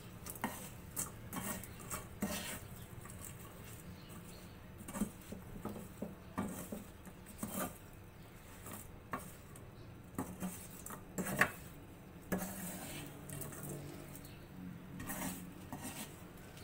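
A wire-mesh skimmer scraping and clinking against a kadhai as peanuts are stirred through hot salt to dry-roast them on a slow flame. Irregular strokes come about once or twice a second, with one louder knock past the middle.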